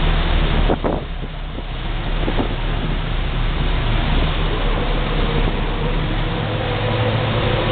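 Motorboat running at speed over open sea: a steady engine drone under the rush of the wake and wind buffeting the microphone. The rushing noise thins briefly about a second in.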